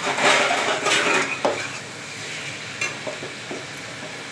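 Potato pieces sizzling as they fry in spiced onion-garlic masala in a pan, with a spatula stirring and scraping them through it; the scraping strokes are loudest in the first second and a half, then the sizzle goes on with a few soft knocks.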